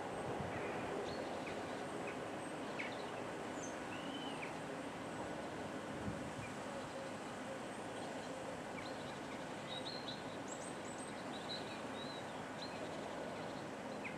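Steady outdoor background noise as the rumble of a departing freight train fades away in the first couple of seconds, with small birds chirping now and then, a few short calls and a little cluster of high chirps near the end.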